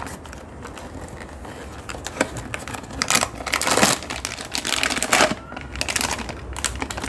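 Packaging being handled: a cardboard parts box opened and a new clutch slave cylinder pulled out in its plastic bag, giving irregular crinkling and rustling, loudest about three to four seconds in.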